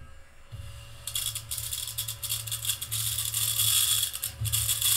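Mini battery-powered handheld vacuum running with a steady whine as it sucks up loose diamond painting drills; from about a second in the drills clatter and rattle continuously into its collection tray.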